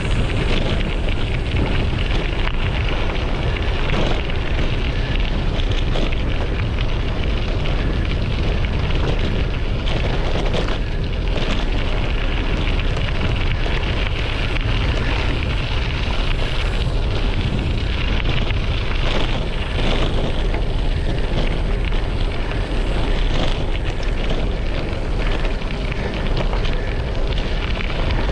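Bicycle tyres rolling over gravel: a constant crunch of stones under the wheels, with wind buffeting the microphone.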